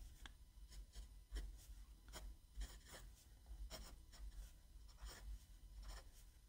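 Jinhao 80 fountain pen's fine hard steel nib writing letters on Rhodia paper: a faint run of short pen strokes with pencil-like feedback.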